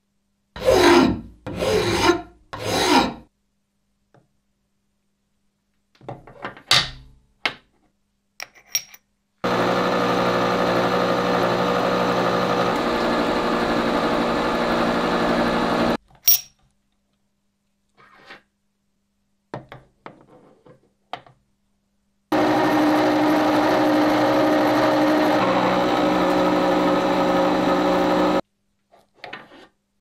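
Three loud scraping strokes near the start. Then a face mill on a manual milling machine cuts an H13 tool-steel block in two steady passes of about six seconds each, with a level, tone-laden cutting sound that starts and stops abruptly. A sharp click comes between the passes, along with scattered small knocks.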